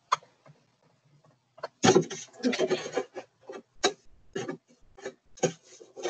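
Scissors cutting through the plastic of a milk jug: short sharp snips at about two a second, with a longer, louder burst of plastic noise about two seconds in.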